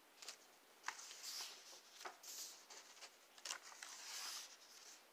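Faint rustle of workbook paper pages being turned by hand: several short, soft swishes.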